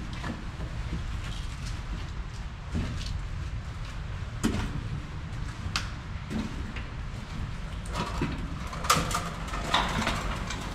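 Slow footsteps crunching over rubble and dry debris on a tunnel floor, an uneven step every second or so, busier near the end, over a steady low rumble.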